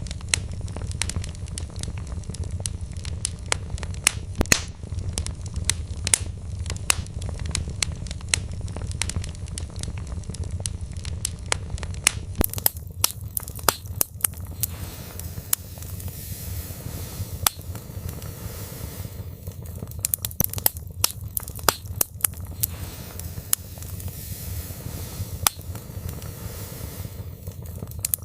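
Wood fire burning in a fireplace: irregular crackles and sharp pops from the burning logs over a steady low rumble of the flames.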